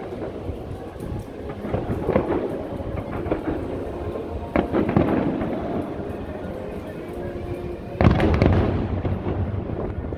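Aerial fireworks shells bursting and crackling, with the biggest boom about eight seconds in followed by a long rolling rumble, over faint music.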